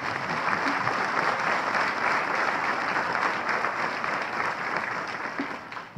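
Audience applauding, a dense even clatter of many hands that fades somewhat near the end.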